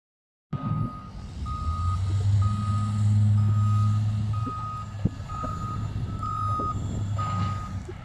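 Cat 950H wheel loader reversing: its backup alarm beeps about once a second over the running diesel engine. The engine swells louder a couple of seconds in, then eases back.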